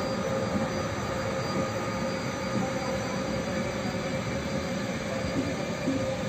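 Electric-hauled passenger train rolling slowly along the platform: a steady rumble of coach wheels on the rails, with a steady high tone running through it.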